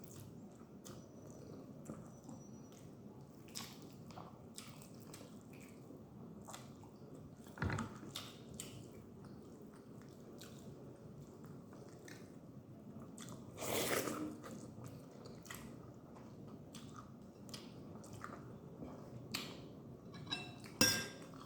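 A person chewing and eating close to the microphone, with soft wet mouth sounds and small clicks. The food is rice, egg and Indomie instant noodles. A few louder knocks come about 8 seconds in and again around 14 seconds.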